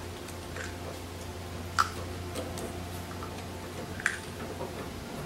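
Light metallic clicks and taps of a washer and lock nut being fitted by hand onto an engine-mount bolt, two sharper clicks about two and four seconds in, over a steady low hum.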